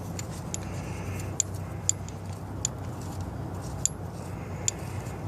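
Light metallic clicks and clinks, scattered irregularly, from hand-threading the EGR valve bolts and handling a socket on a swivel extension. A steady low hum runs underneath.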